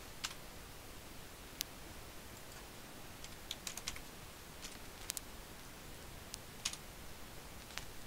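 Computer keyboard keys tapped in scattered light clicks, with a short quick run of keystrokes about halfway through.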